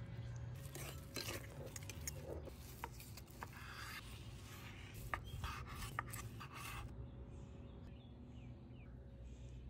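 A fork mashing and stirring potatoes in a stainless steel pot: irregular scrapes and light clinks of metal on the pot, which stop about seven seconds in. A steady low hum runs underneath.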